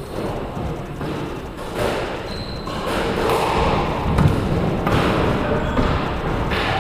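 Squash rally: the ball struck by rackets and hitting the court walls, heard as several sharp knocks about a second apart.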